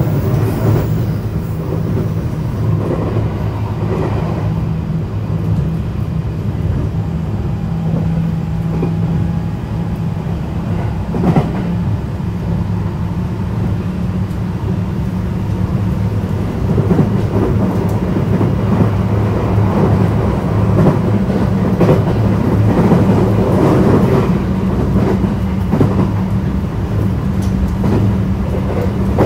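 JR West 321-series electric multiple unit running along the line, heard from inside the car: a steady low rumble with now and then a click of the wheels over a rail joint, the clearest about eleven seconds in.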